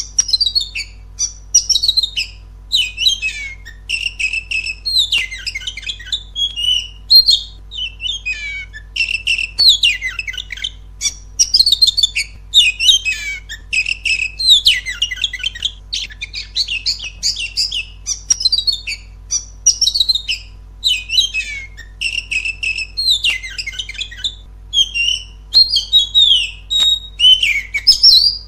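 Oriental magpie-robin singing a fast, unbroken run of varied whistled and chattering phrases, each about a second long with short gaps between them.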